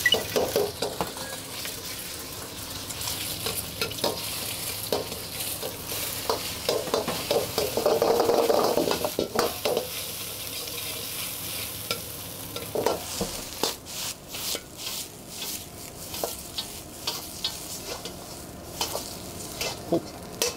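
Fried rice with freshly added beaten egg sizzling in a hot steel wok over a gas burner, stirred and scraped with a metal ladle; the frying swells louder for a few seconds in the middle. In the last third the ladle clanks and scrapes against the wok many times as the rice is scooped up.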